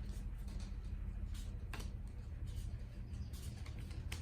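Trading cards being flipped through by hand: a few faint papery flicks and taps, roughly one a second, over a steady low hum.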